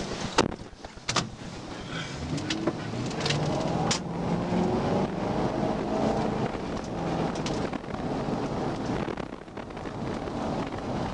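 Police patrol car driving on a wet road: engine and tyre noise, with the engine note rising about two seconds in and holding as the car speeds up. A few sharp clicks in the first few seconds.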